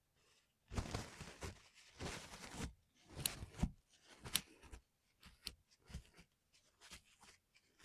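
Hands working on a mechanical keyboard: about two seconds of scraping and rubbing, then a string of sharp plastic clicks and snaps.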